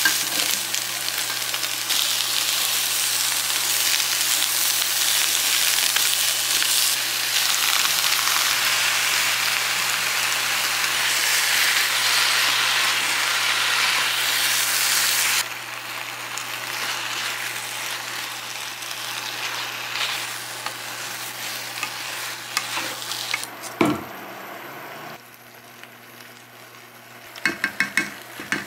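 Sliced cabbage and onion sizzling as they are stir-fried in a hot nonstick wok, stirred with a wooden spatula. The sizzle is loud at first, drops sharply about halfway through and fades lower, with a single knock and then a few quick clicks near the end.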